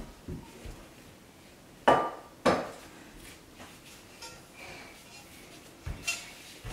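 Metal cooking pots being handled and set down: two loud ringing clanks about two seconds in, half a second apart, then lighter knocks and another clank near the end.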